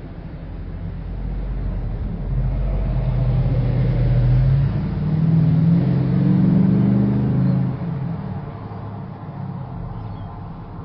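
A motor vehicle's engine drawing near and passing. It grows louder over the first few seconds, its low engine note shifting up and down in pitch at its loudest, then drops away and fades about eight seconds in.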